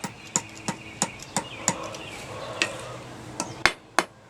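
Light ball-peen hammer blows ringing on a hot horseshoe nail against an anvil, about three taps a second, as a small scroll is forged. The taps grow sparser near the end.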